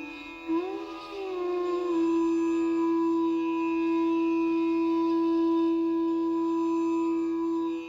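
Instrumental background music in Indian classical style: a melody gliding in pitch, then holding one long note over a steady drone.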